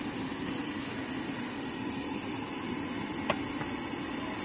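Steady hissing roar from a street vendor's stove burner and the steaming pot used for steamed coconut rice cakes, with a single sharp click about three seconds in.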